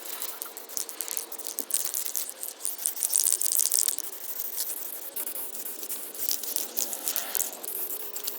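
Aerosol spray-paint can at work: the mixing ball rattling as the can is shaken, with hissing bursts of paint spray, strongest about three seconds in.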